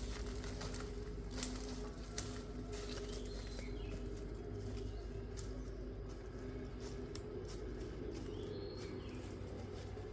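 Outdoor ambience with birds calling, including two short higher calls about three seconds in and near the end, over a steady low hum and scattered faint clicks.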